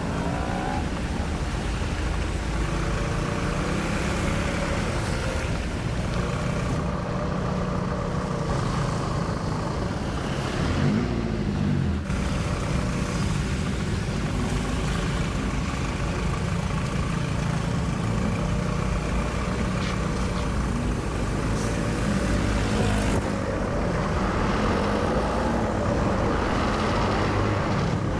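Motorcycle engine running at low speed through slow traffic, its pitch rising and falling now and then with the throttle, over a steady hiss of tyres on wet road and the surrounding traffic.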